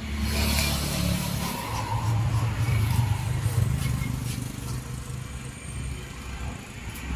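Low rumble of a motor vehicle engine, strongest a few seconds in and easing near the end.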